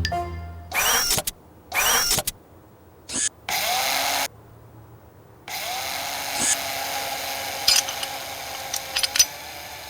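Cartoon mechanical sound effects: a few short machine sounds with quiet gaps between them, then, about halfway in, a steady motor-like running sound with a few clicks near the end.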